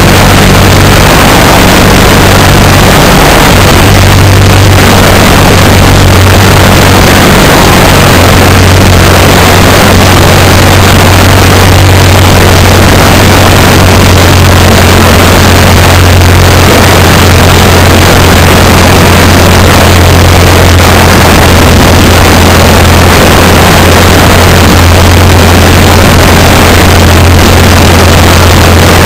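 Legal Eagle ultralight's engine running steadily in flight, a loud, even low drone from the engine and propeller, with rushing wind on the microphone.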